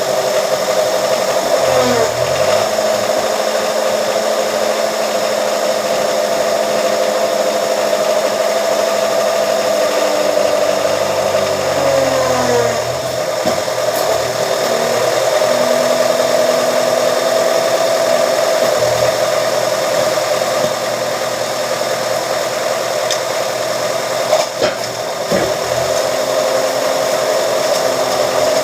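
Motor of a metal-working press machine running steadily with a constant hum. Its pitch sags briefly a couple of times, as if under load, and there are a couple of sharp knocks near the end.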